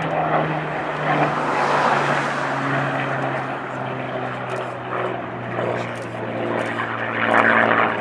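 Hawker Hurricane's Rolls-Royce Merlin V12 piston engine droning as the fighter flies past overhead. Its note slides slowly down in pitch, and it swells louder near the end.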